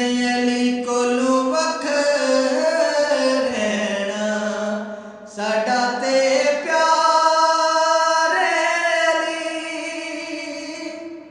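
A man reciting a naat unaccompanied: a solo male voice holding long, drawn-out notes, with a short break for breath about five seconds in.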